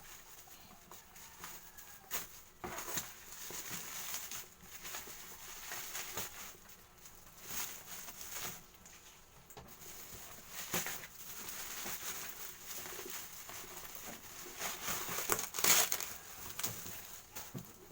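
Packaging rustling and crinkling as a parcel is opened by hand, in irregular bursts, with a louder rip or crackle near the end.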